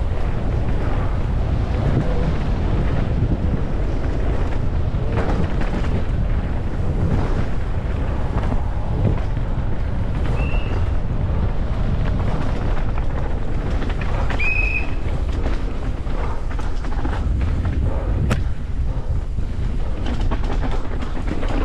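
Wind rushing over the microphone with steady rumbling and frequent knocks from a downhill mountain bike running over rough trail, with a couple of short high squeaks and a sharp click about 18 seconds in.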